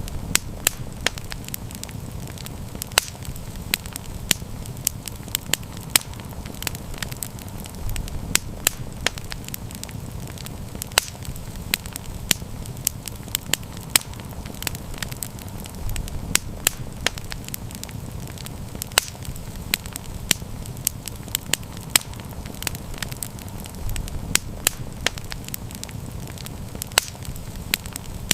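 Campfire burning, with frequent sharp crackles and pops over a steady low rumble of flame that swells about every eight seconds.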